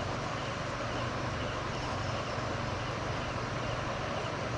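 Steady night ambience by a river: a continuous rushing sound with a low, even hum underneath.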